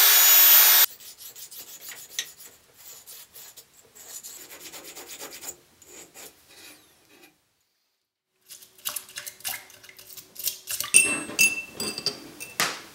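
A narrow hand-held belt file runs for about a second and cuts off. Then come quick, light hand-filing strokes of a small file on a pattern-welded steel jew's harp part. After a short pause, small metallic clinks and rattles are heard as the steel piece knocks against a glass jar.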